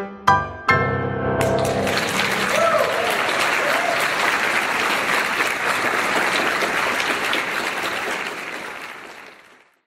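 A piece of music ends with a few last notes, then an audience applauds, the clapping fading out near the end.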